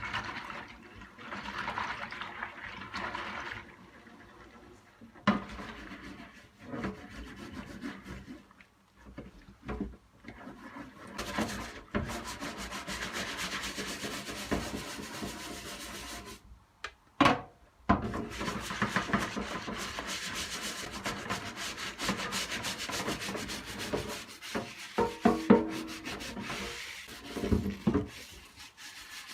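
Rubbing and scrubbing on keyboard parts during cleaning, in long rough strokes broken up by scattered clicks and knocks of plastic being handled.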